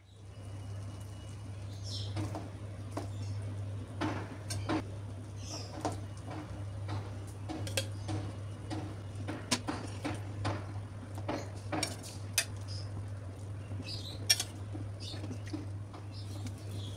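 A spatula scraping and knocking against a cooking pot as rice is turned and spooned, making irregular sharp clicks and clinks over a steady low hum.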